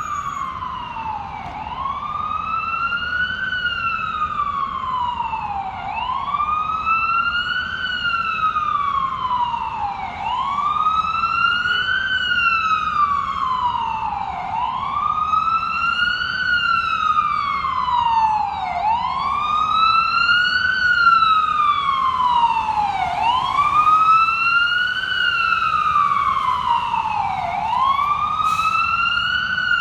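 FDNY EMS ambulance siren on a slow wail, rising in pitch for under two seconds and then falling more slowly, repeating about every four seconds, over a steady low rumble.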